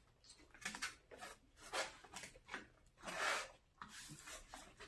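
Plastic forks scraping and clicking against styrofoam takeout containers, scooping up the last of the food: a string of short, quiet scrapes with one longer scrape a little after three seconds in.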